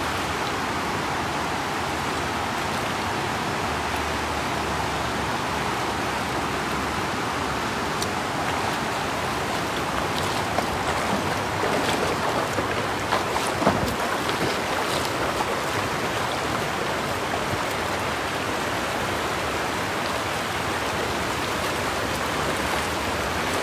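Shallow river running over stones, a steady rush of water, with a few light splashes in the middle stretch.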